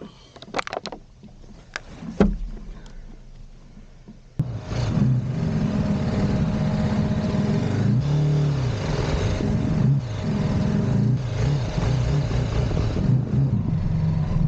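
A few clicks and knocks from gear being handled, the loudest about two seconds in. About four seconds in, the BMW G 310 GS's single-cylinder engine starts sounding abruptly and runs on steadily as the motorcycle rides a dirt trail, revving up and easing off once near the middle.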